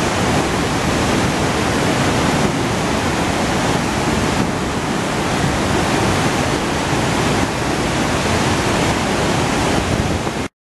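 Iguazu Falls: the dense, steady rush of falling water, which cuts off abruptly near the end.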